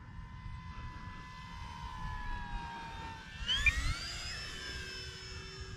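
Electric brushless motor and propeller of an E-flite Air Tractor 1.5m RC plane whining in flight, its pitch slowly sinking. About three and a half seconds in, the whine jumps sharply higher and louder, with a brief low rumble of wind on the microphone, then holds at the higher pitch.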